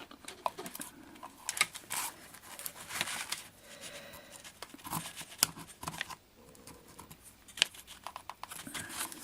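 Sticky copper tape being peeled and pulled off radio parts. It makes irregular tearing and crinkling rasps, with small clicks of handling. The tape has gone sticky from being soaked in CRC spray.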